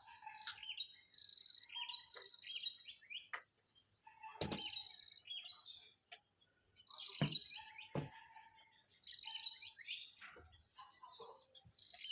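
Birds singing short repeated phrases of high, falling chirps every few seconds. A few sharp knocks come in between, about four and a half, seven and eight seconds in.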